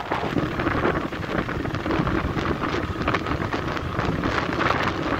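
Wind buffeting the microphone of a phone filming from a moving motorcycle, a steady crackling rush with the bike's engine running underneath.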